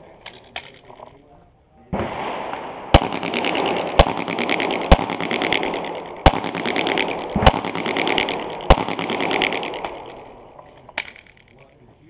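Pistol shots during a practical shooting stage: about eight single sharp shots spaced roughly one to two seconds apart, with a steady hiss of movement or wind between them.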